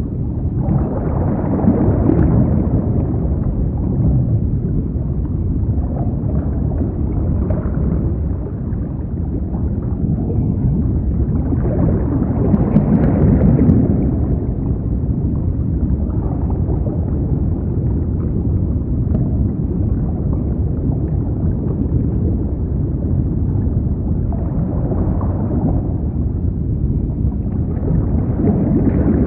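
Sea surf washing on a beach with heavy wind rumble on the microphone. It swells louder about every eleven or twelve seconds.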